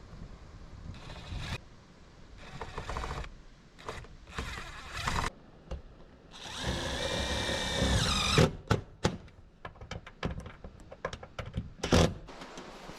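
Power drill driving screws in several short runs, then one longer run whose pitch shifts, followed by a string of sharp knocks and clatter.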